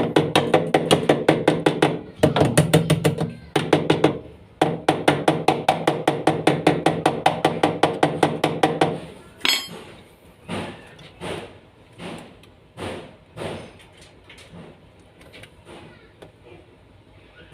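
Rapid hammering or knocking, about five strikes a second with a ringing tone, in three runs broken by short pauses, then slower single knocks that grow fainter about nine seconds in.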